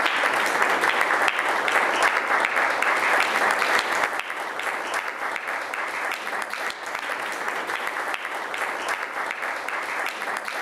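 An audience applauding, a dense, steady patter of many hands clapping that eases slightly after about four seconds.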